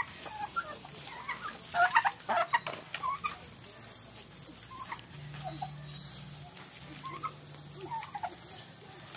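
Domestic turkeys making short, scattered calls while feed is poured for them from a sack, with a few sharp knocks and rustles about two seconds in.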